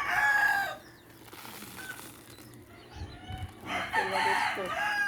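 Rooster crowing: a long crow ends within the first second, and another crow begins about three and a half seconds in.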